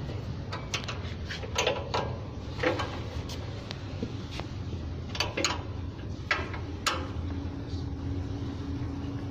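Sharp metallic clicks and taps, about a dozen at uneven intervals, as a hand tool works on a band saw's blade-guide bearings, over a steady low hum. A faint steady tone joins about seven seconds in.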